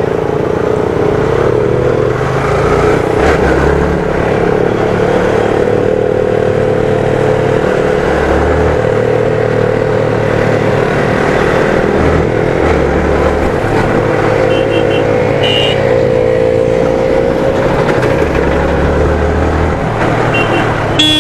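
Motorcycle engine running steadily while riding, with wind rumbling on the microphone; the engine note rises a little about two-thirds of the way in. A few short high beeps sound about fifteen seconds in.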